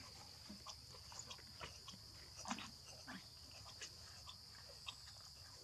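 Faint, steady high-pitched chorus of night insects, with scattered soft clicks and taps.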